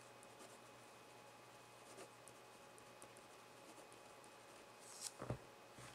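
Faint scratching of a felt-tip pen writing on paper, with a soft knock about five seconds in.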